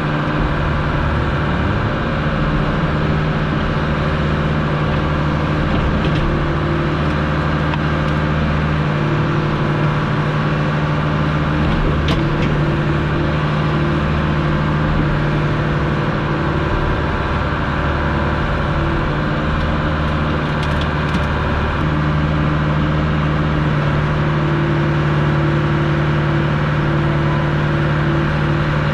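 Diesel engine of heavy earthmoving equipment running steadily at working speed, its low note shifting every several seconds as the machine works, with a few faint ticks.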